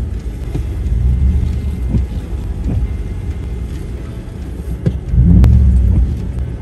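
Off-road vehicle's engine running low and slow as it crawls a rutted mud trail, heard inside the cab, with occasional knocks from the body and suspension. The rumble swells louder for about a second past five seconds in.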